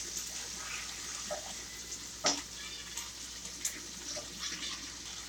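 Sausages sizzling as they dry-fry in a pan with no oil: a steady frying hiss, with a couple of short clicks.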